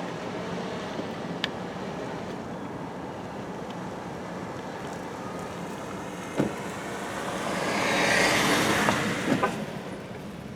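Steady road and engine noise of a car driving slowly. A louder rush of noise swells and fades near the end, with a few sharp knocks.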